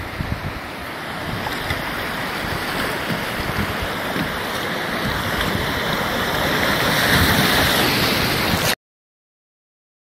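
Rushing whitewater around a kayak running a small ledge waterfall on a river, a steady rush that grows louder as the boat goes over the drop. It cuts off suddenly to silence about nine seconds in.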